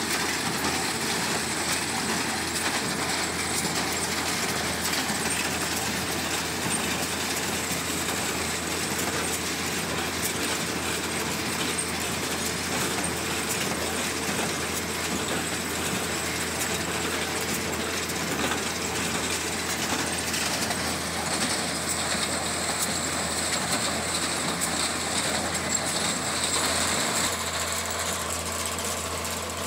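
Tractor-driven hay baling machinery running: a steady, dense mechanical clatter over an engine drone. The sound changes in character near the end.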